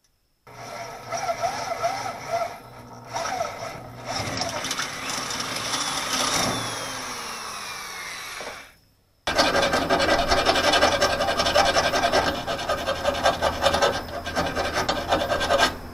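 Electric drill boring through a steel skid plate, its pitch falling away as it runs down. After a short break, a hand file rasps back and forth rapidly on the steel, cleaning up the edge of a newly cut slotted bolt hole.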